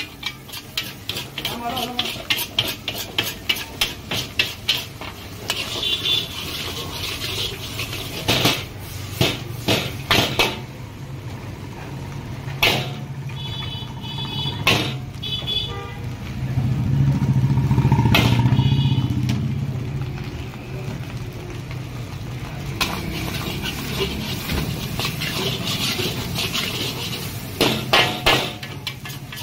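Metal spatula clanging and scraping against a wok in quick runs of knocks as fried rice is tossed, over a steady low hum. A louder low rumble, like a passing vehicle, swells up and fades in the middle.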